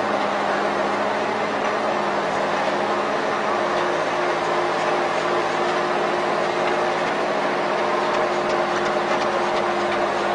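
A compost turner runs steadily while it churns and throws organic compost, making an even mechanical din. Through it runs a steady hum that shifts to a higher pitch about four seconds in.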